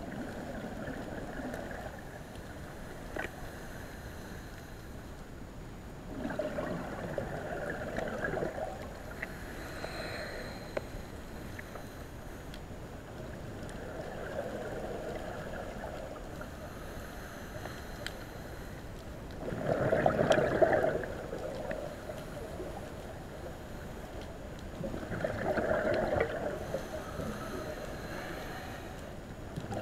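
Scuba diver's regulator breathing heard underwater: swells of bubbling, gurgling exhaled air several times, loudest about two-thirds of the way through, over a steady underwater hiss.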